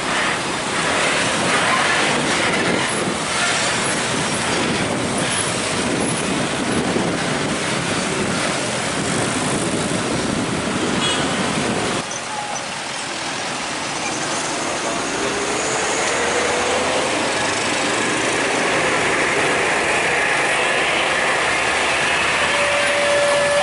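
Heavy diesel trucks passing close by in loud road traffic. About halfway through the sound cuts and drops, then an engine note rises slowly as a truck pulls away.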